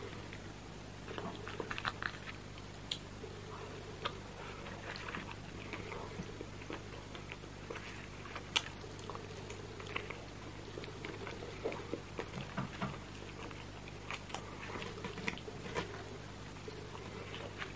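Close-miked chewing and mouth sounds of someone eating roast chicken, with irregular soft wet clicks and smacks throughout. A low steady hum runs underneath.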